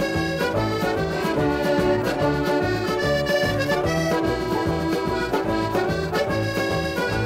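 Button accordion playing an instrumental traditional Newfoundland tune over a steady bass beat of about two beats a second.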